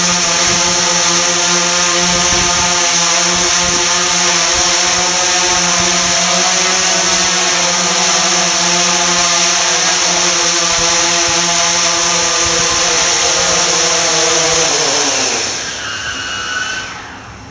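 DJI Phantom 3 Pro quadcopter hovering, its four brushless motors and propellers giving a loud, steady buzzing whine. About fifteen seconds in, the pitch falls and the sound dies away as the drone lands and the motors spin down.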